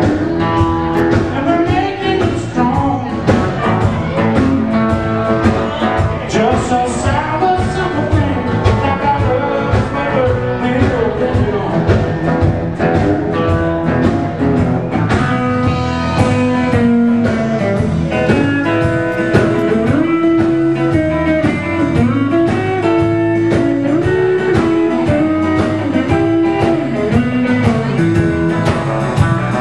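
A live blues band playing, with electric guitar over bass and drums.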